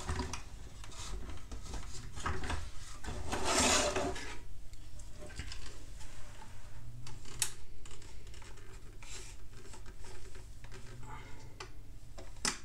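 Plastic parts of a 1/16 Bruder Cat compactor model being handled and pressed together by hand: rubbing and scraping with scattered small clicks, the loudest scrape about three to four seconds in.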